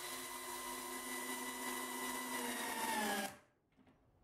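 Cordless drill-driver motor running steadily under load, its pitch sagging slightly just before it stops about three seconds in.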